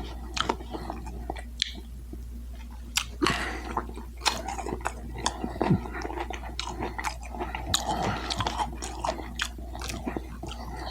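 Close-miked chewing of a crispy breaded boneless chicken wing, with irregular crunches and wet mouth clicks.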